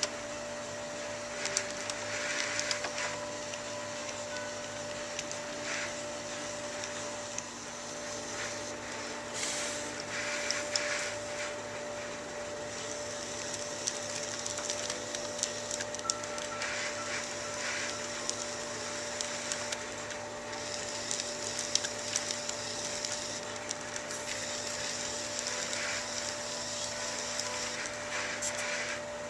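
Electric potter's wheel motor humming steadily, with intermittent rubbing and scraping noises over it.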